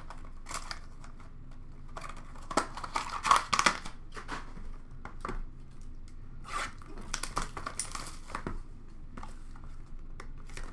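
Trading-card packaging and wrappers crinkling and rustling as hands rummage through a plastic bin of opened packs, in irregular bursts, loudest about three seconds in and busy again around seven to eight seconds.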